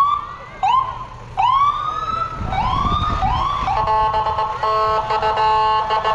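Ambulance siren giving several short rising-and-falling whoops, then the vehicle's horn sounding in a string of short blasts from about halfway through, over a low engine rumble as it passes.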